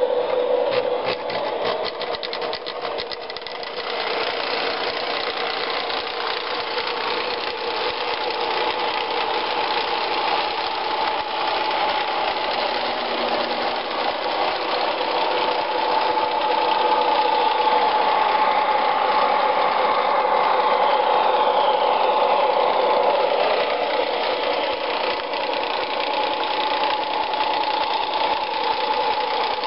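MTH model train locomotive running on the layout track: a steady mechanical motor hum mixed with its onboard engine sounds. A run of rapid clicks comes in the first few seconds, and the hum moves to a higher pitch from about ten seconds in.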